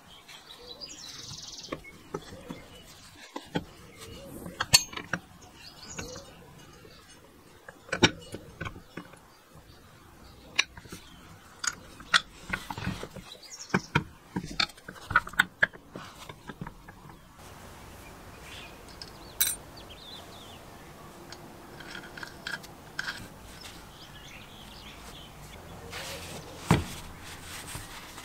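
Steel parts of a manual chain hoist's housing being handled and fitted together: sharp metallic clinks and knocks, frequent for the first half and sparser after, with one louder knock near the end.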